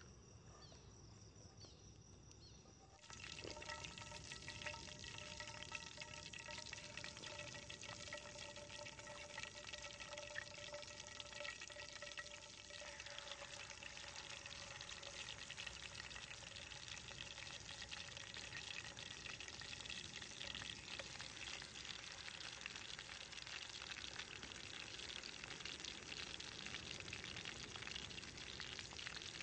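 Food sizzling and crackling in hot oil, setting in suddenly about three seconds in and carrying on steadily. A few steady high tones run underneath until about halfway.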